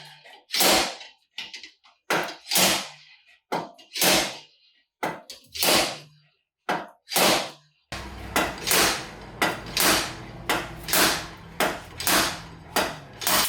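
Repeated hammer blows on steel, each with a short metallic ring, driving the old rear wheel bearing out of a BMW E46's hub carrier. The blows come in pairs about a second apart at first, then after a cut about eight seconds in they come faster, about two a second.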